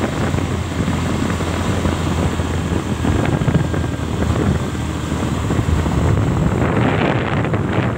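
Motorcycle engine running steadily on the road, with wind noise on the microphone.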